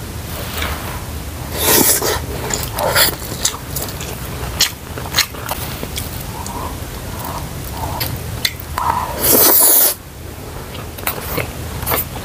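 Close-up chewing and biting of sticky rice (xôi xá bấu) with crunchy bits of salted dried radish, with many short wet clicks and smacks. There are louder rustling bursts about two seconds in and again just after nine seconds, the second the longest and loudest.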